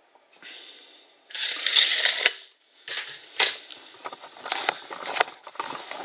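Handling noise: a loud rustling scrape lasting about a second, then a run of irregular clicks and crackles, typical of measuring tools being handled and put down.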